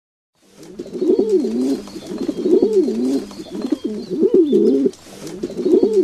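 Pigeon cooing: four or five repeated low, swooping coo phrases, starting about half a second in.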